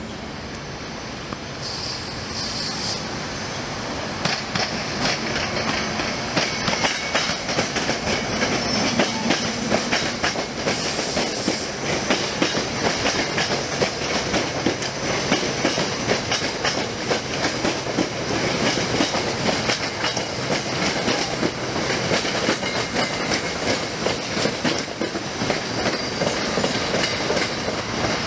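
SEPTA Silverliner IV electric multiple-unit train passing close by, its wheels clicking rapidly over rail joints and switches. The sound grows louder about four seconds in and stays up as the cars go by.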